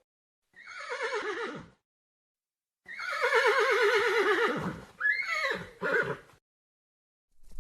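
Horse whinnying: a short whinny about half a second in, then a long quavering whinny that falls in pitch, followed by two shorter calls near the end.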